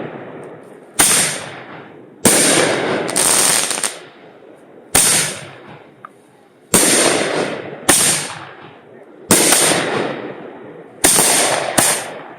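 Consumer fireworks going off in a string of about nine loud bangs, one every second or so at an uneven pace, each one fading out over about a second.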